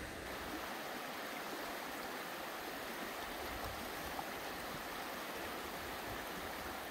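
Fast mountain river rushing over a shallow stony riffle: a steady, even rush of water.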